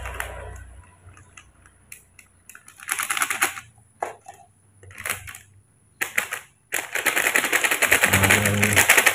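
Crinkling and rustling of a foil baby-cereal sachet being handled, in short bouts, then louder and continuous over the last two seconds or so.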